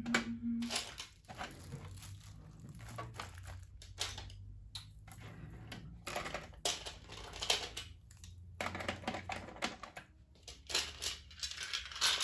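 Small craft supplies being handled and set down in a metal toolbox: irregular clicks and taps with bursts of rustling.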